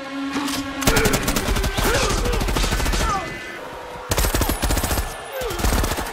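Automatic weapons firing in rapid bursts: one long burst starting about a second in and lasting about two seconds, then a shorter burst starting about four seconds in, after a brief lull.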